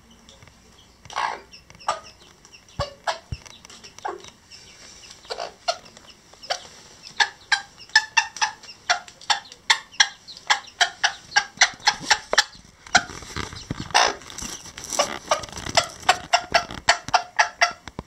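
Old English Game bantam hen clucking: short, repeated clucks, a few at first, then quickening into a fast run of about three or four a second.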